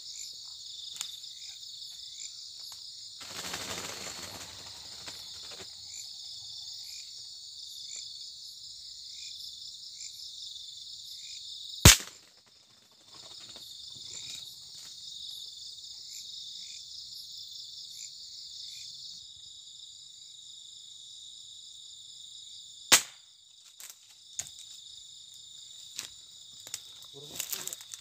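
Steady chorus of crickets and other night insects, broken twice by a single sharp gunshot, the two about eleven seconds apart. A few light clicks and rustles near the end.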